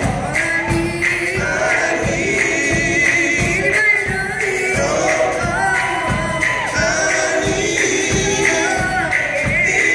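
Live gospel group singing into microphones over a band of electric guitar, keyboard and drums, the drums keeping a steady beat.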